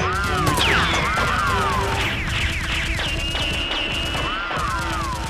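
Dubbed-in gunfire sound effects for a Nerf-gun shootout: rapid shots with quick falling, whistling zips, over background music.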